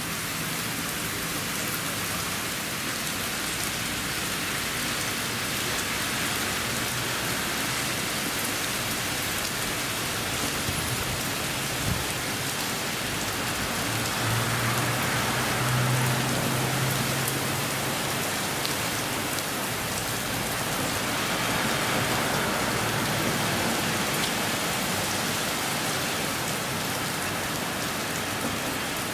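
Heavy typhoon rain pouring steadily, swelling louder twice. A low hum sounds for a few seconds around the middle, and there is a faint knock before it.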